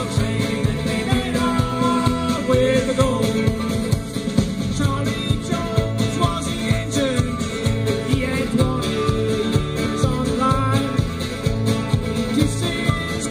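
A live band playing a country-rock song over a steady beat, with guitars and melodic lines on top.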